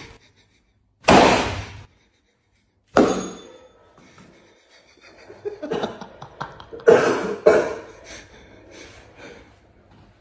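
Foam pool noodles smacking during a whack game: two sharp hits, about one second and three seconds in, then a rapid flurry of hits and scuffling from about five to nine seconds.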